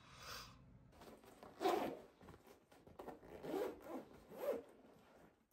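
Zipper on a fabric backpack being pulled in several short rasping strokes, the first and loudest about a second and a half in.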